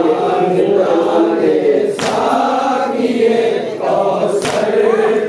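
A group of voices chanting a noha, a Shia lament for Muharram, in unison, with brief pauses for breath about two seconds in and again near the end.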